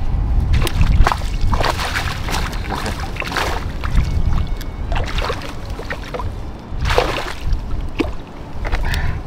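Handling noise: scattered rustles and sharp clicks of hands working at the fishing line and bait on the ground, over a steady low rumble.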